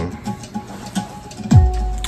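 Music played through the restored 1964 Fisher 500-C tube stereo receiver and its speakers. About a second and a half in, a deep bass sound slides down in pitch and holds.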